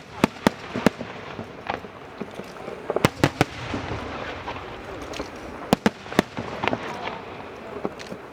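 Fireworks shells bursting in sharp bangs that come in quick clusters of several at a time, over a steady background hiss.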